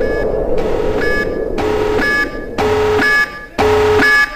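Electronic intro jingle: a noisy swell opens, then a stack of steady electronic tones pulses on and off about once a second, like an alarm beep.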